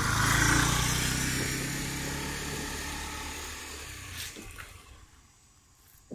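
A motor engine running, loudest about half a second in and then fading steadily over the next few seconds as it moves away.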